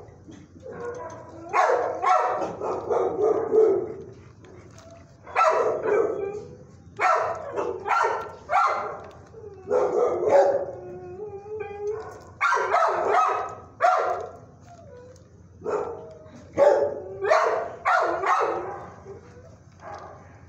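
Dogs in a shelter kennel barking and howling in repeated bouts of a second or two, some calls drawn out, with short gaps between.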